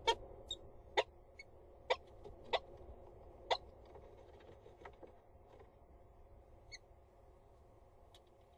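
A peregrine falcon on the nest-box ledge making a series of short sharp clicks and taps, roughly one a second, that stop after about five seconds as it leaves; a few fainter, higher ticks follow near the end.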